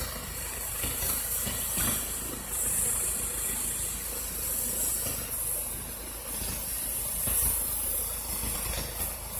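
Twin-engine medical helicopter running on the ground: a steady high turbine hiss over a low rumble, swelling and easing a little.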